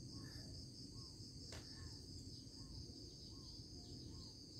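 Faint, steady, high-pitched insect trilling, with soft short chirps repeating about twice a second and a single click about a second and a half in.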